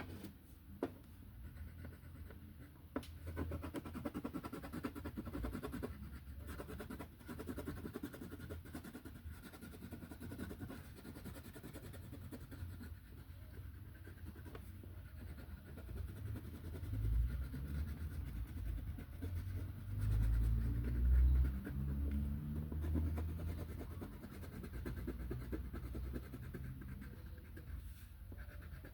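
Coloring tool scratching on paper in fast back-and-forth strokes, with a louder low rumble in the middle.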